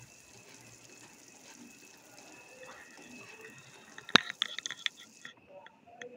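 Almonds and walnuts frying in ghee in a non-stick pan, a faint sizzle, while a metal spoon stirs them. About four seconds in the spoon knocks sharply against the pan, followed by a quick run of clinks and scrapes; the sizzle cuts off about a second later.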